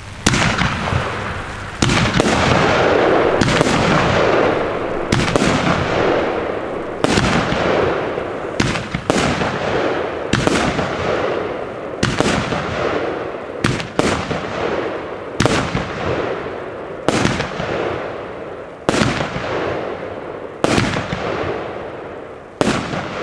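Weco 'Pretty Heaven' 13-shot gold-effect fireworks battery firing: a steady string of sharp bangs about every one and a half to two seconds, each trailing off in a fading tail.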